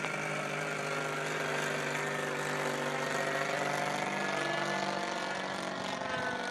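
Radio-controlled model airplane flying overhead, its small engine and propeller giving a steady drone whose pitch drifts slowly.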